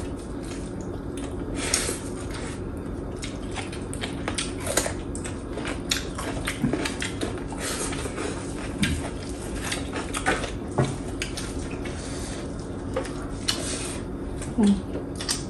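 Eating a meal of dal and rice from a plate: scattered clinks and taps of dishes and utensils, with a few short mouth sounds, over a steady low hum.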